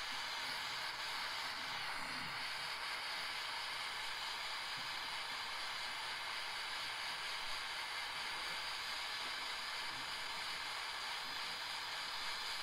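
Small hand-held gas torch burning with a steady hiss as its flame melts old solder off a radiator tank.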